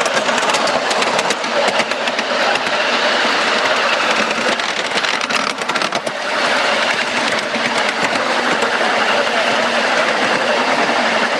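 Miniature ride-on railway train running along the track, its wheels clattering and clicking over the rails in a rapid, steady stream, heard from a riding car close to the wheels. The sound dips briefly about halfway through.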